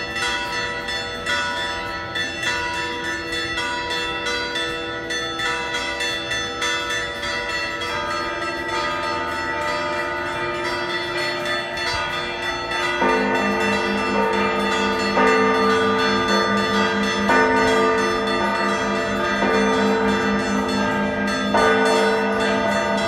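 Church bells pealing, many strokes of several bells overlapping. About halfway through, lower, louder bells join in and the peal grows fuller.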